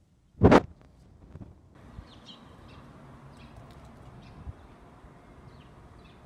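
Small birds chirping in short, high calls over a steady outdoor background. About half a second in there is one short, loud bump.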